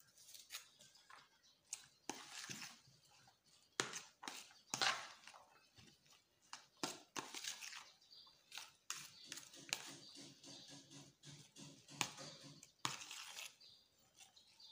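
A stock cube being unwrapped from its foil and crumbled over a rice mixture, then a metal fork scraping and stirring it in a plastic tub: irregular crinkling, crushing and scratching with small clicks.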